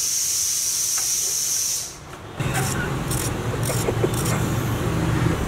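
A steady high hiss fades out about two seconds in. After it, over a low background rumble, a small knife scrapes the skin off a raw potato in four short strokes about half a second apart.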